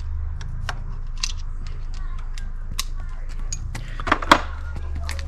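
Scattered metallic clicks and taps of a spanner and socket working on the pit bike's gear shift fitting, with a cluster of sharper clicks about four seconds in, over a steady low hum.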